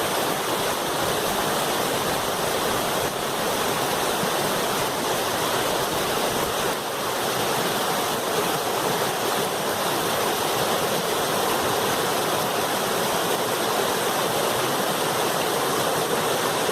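Loud, steady rush of a river pouring over a small waterfall.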